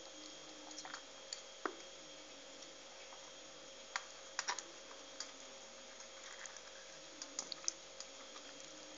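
Irregular light clicks and taps of a metal spoon against a metal tray as hands work rice filling onto cabbage leaves, over a faint steady hum.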